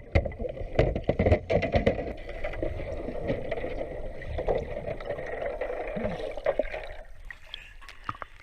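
Water splashing and sloshing in a training pool, with a run of sharp knocks and clatter in the first couple of seconds; it dies down about seven seconds in.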